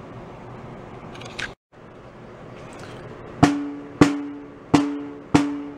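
Restored Ludwig Super Sensitive chrome-over-brass snare drum struck four times, about 0.6 s apart, in the second half. Each stroke rings at the same pitch with the buzz of its snare wires, which are set just touching the head.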